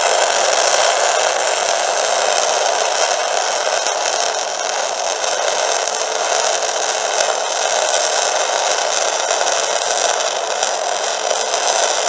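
MIG (gas metal arc) welding arc crackling and sizzling steadily and loudly at close range, throwing spatter, with the arc running stable.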